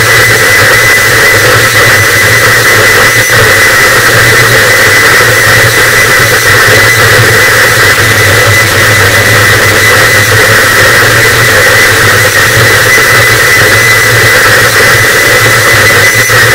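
Harsh noise wall: a loud, unchanging wall of distorted static with a thin steady high tone running through it and a low hum band beneath.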